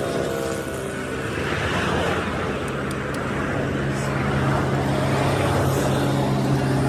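Truck engine running: a steady low hum that grows stronger about halfway through, over a noisy background.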